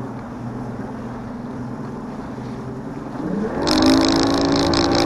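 Bass boat's outboard motor running steadily at low speed, then throttled up about three seconds in: its pitch rises and it grows much louder, joined by a rush of noise.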